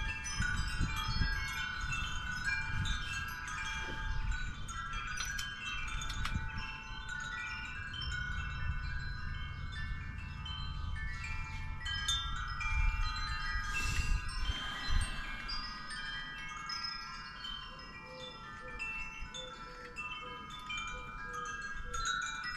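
Wind chimes ringing on and on, many overlapping metallic tones striking and dying away. A low rumble sits beneath them in the first half and fades out about fifteen seconds in.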